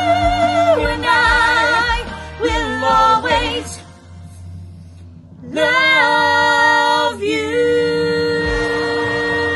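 A woman and a man singing a duet, holding long notes with vibrato. The singing breaks off briefly about four seconds in, then the two voices hold a long note together in harmony.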